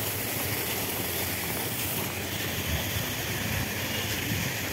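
Steady outdoor background noise on the phone microphone: an even hiss over a low rumble, with no distinct events.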